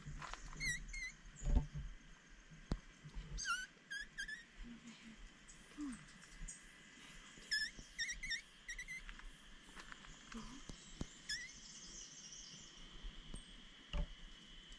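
Wild birds calling: several runs of three or four short, quick chirping notes, repeated a few times. A low thump about a second and a half in is the loudest moment.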